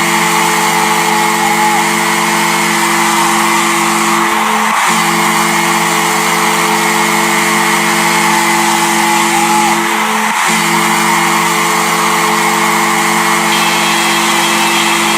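The New Jersey Devils' arena goal horn sounding a low multi-tone chord in three long blasts of about five seconds each, with brief gaps between them.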